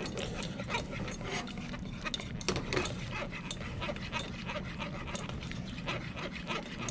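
Wire whisk stirring a béchamel white sauce in a saucepan as it thickens toward the boil: repeated swishing strokes through the liquid and against the pan, over a steady low hum.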